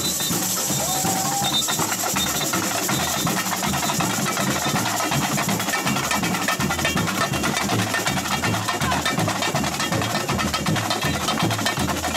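Samba bateria (drums and shakers) playing a fast, steady beat, with voices mixed in.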